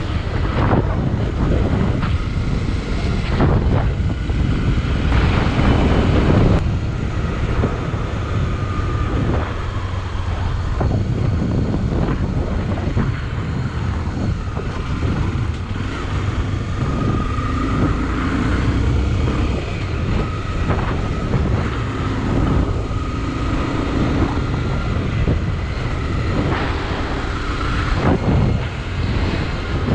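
Motorcycle running on the move, with wind buffeting the microphone and the engine's pitch shifting now and then.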